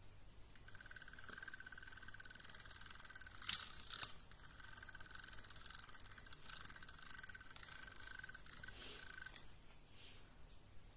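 Small electric motor and gears of a rotating butterfly cat toy whirring with a steady high whine and fine rattle, stopping a little before the end. Two sharp clicks about half a second apart near the middle are louder than the whirring.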